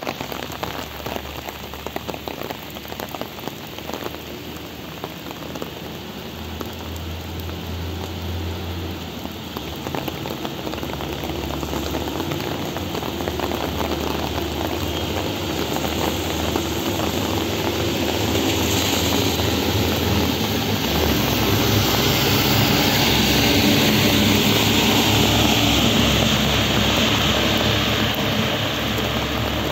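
Heavy rain pouring onto a wet street: a dense hiss of drops splashing on pavement and puddles, growing louder through the second half, with a low rumble underneath.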